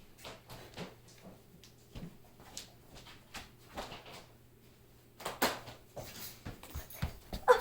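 Scattered small knocks and clicks of toys being handled and moved about, with a louder knock about five and a half seconds in.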